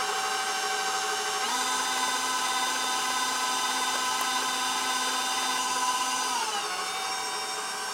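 Stand mixer motor running with a steady whine as it beats butter, sugar and eggs. The pitch steps up as the speed is turned up about a second and a half in, and drops back down near the end.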